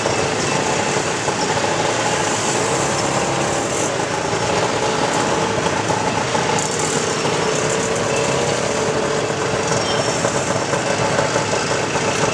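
Tuk tuk engine running steadily, heard from inside the open passenger cab, with a couple of steady engine tones over general street-traffic noise.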